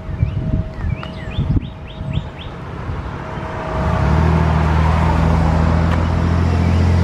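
Gusty wind rumbling on the microphone with birds chirping. About four seconds in, a deep steady motor hum with a rushing hiss starts and holds.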